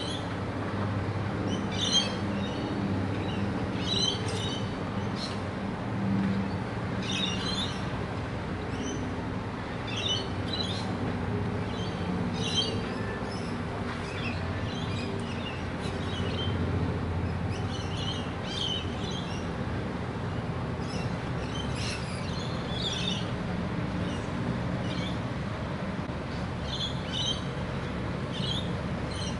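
Rainbow lorikeets chirping in short, high, scratchy bursts every second or two, over a steady low rumble.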